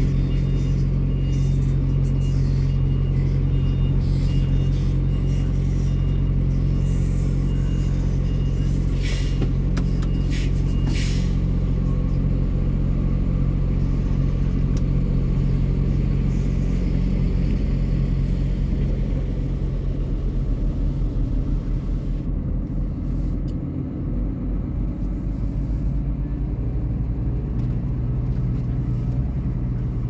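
Diesel semi-truck engine running steadily as the truck drives slowly. A few short hisses come about ten seconds in. The engine note shifts and eases a little about twenty seconds in.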